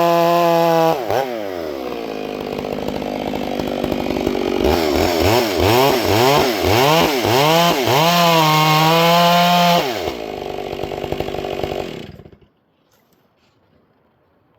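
Chainsaw engine running at high revs, dropping towards idle about a second in. From about five seconds in it is revved up and down in quick blips, held high briefly, then falls back to idle and stops about twelve seconds in.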